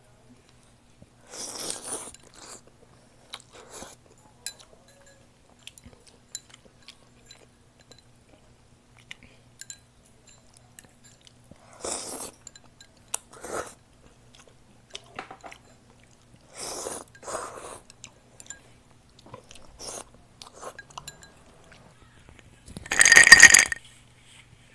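Close-up eating sounds: noodles slurped and chewed in several short bursts. Near the end comes a much louder short clatter with a glassy ring.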